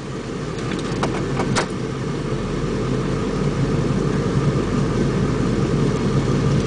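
Truck engine and road noise heard from inside the cab while driving slowly, a low steady rumble that grows a little louder; a few faint clicks about a second in.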